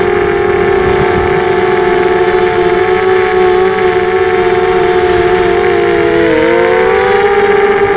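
FPV multirotor drone's motors and propellers whining in flight, heard loud from the onboard camera: a cluster of close, slightly wavering pitches that bends up and down briefly about six seconds in.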